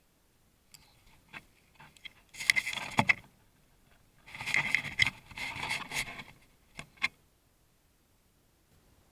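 Close scraping and rustling picked up by a trail camera's built-in microphone: two bursts, about a second and then about two seconds long, with scattered sharp clicks before and after.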